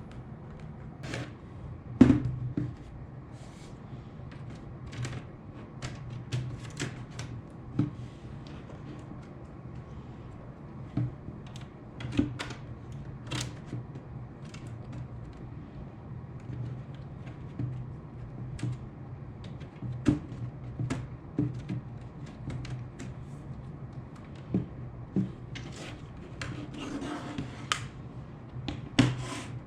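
Irregular clicks and taps of plastic and small tools on a laptop being handled, with a brief scrape near the end, over a steady low hum.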